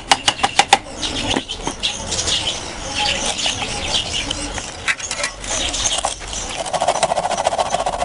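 Four quick hammer blows on a nail driven through a thin wooden board into a bamboo tube, followed by handling noise. About two thirds of the way in, a steady rasping begins: a hand saw cutting.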